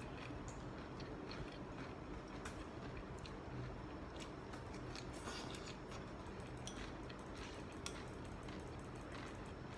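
A person chewing food, faint, with irregular small clicks over a low steady background hum.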